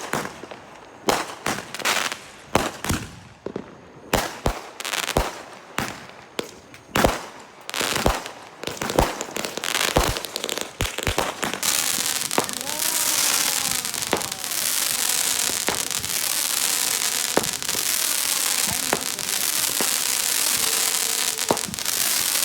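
Fireworks going off: a run of sharp, irregular bangs and pops, then from about halfway a dense, continuous crackle with a few pops still in it.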